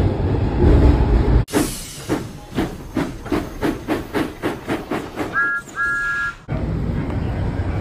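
Washington Metro train running, a loud low rumble. About a second and a half in, the sound changes abruptly to rhythmic clicking, about three clicks a second, with two short electronic beeps near the end of that stretch. The rumble then returns.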